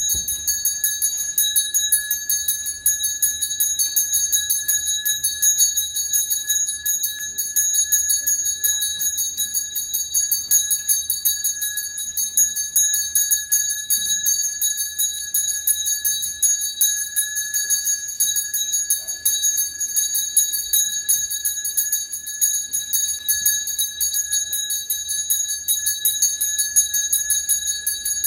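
A small bell rung rapidly and without pause, one steady ringing pitch with higher overtones and a fast flutter of repeated strikes.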